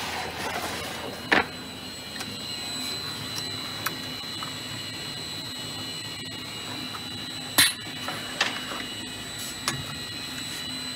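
Edgebanding machine's motors running with a steady high-pitched whine and a low hum. Sharp clicks cut through once a little over a second in, then three more between about seven and ten seconds in.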